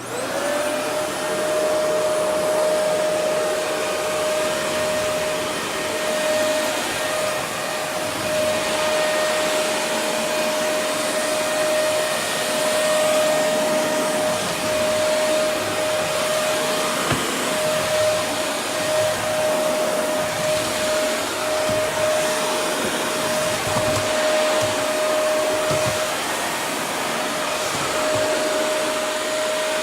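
Shark Navigator Lift-Away NV360 upright vacuum cleaner switched on, its motor spinning up into a steady high whine over a loud rush of air. It runs on the bare-floor setting with the brushroll off, and the whine drops out briefly a few times.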